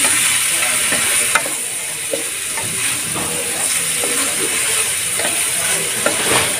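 Chicken livers frying in an aluminium pot with a steady sizzle, stirred with a wooden spoon that knocks and scrapes against the pot now and then.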